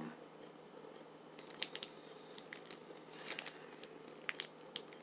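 Plastic protein-bar wrapper crinkling faintly as it is handled, a few scattered crackles over a low steady room hum.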